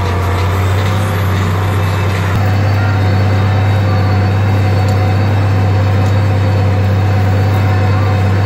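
International 956 XL tractor's six-cylinder diesel engine running steadily under load while pulling a disc harrow, heard from inside the cab as a low drone. It gets a little louder about two seconds in.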